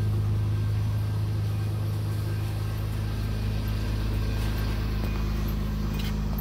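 2006 Hyundai Santa Fe's 2.7-litre V6 idling steadily.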